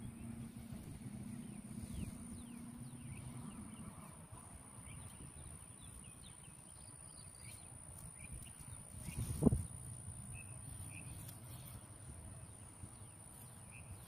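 Outdoor field ambience: scattered faint bird chirps over a low rumble, with one short thump about nine and a half seconds in, the loudest sound.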